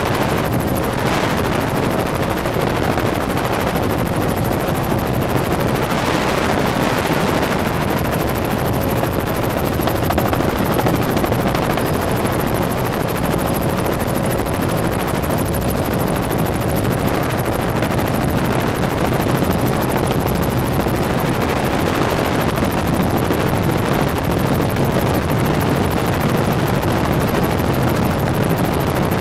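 Helicopter in flight, heard from inside the cabin: a loud, steady rotor and engine noise with a faint steady hum.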